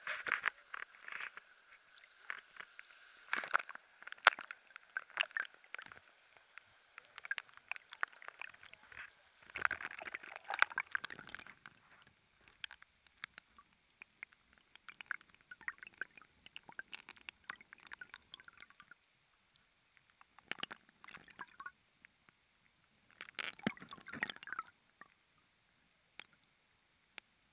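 River water heard through a submerged action camera, muffled: irregular crackling, gurgling and knocking of water against the camera, in clusters with quieter gaps between.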